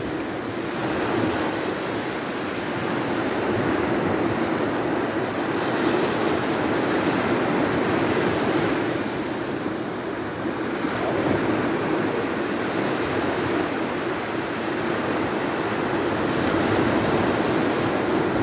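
Sea surf washing onto a sandy beach, a steady rush of breaking waves that swells and eases slowly in loudness.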